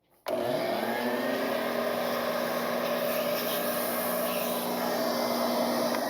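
Vacuum cleaner switched on, spinning up quickly to a steady whine and running while sucking drilling dust out of an anchor hole. It starts to wind down right at the end.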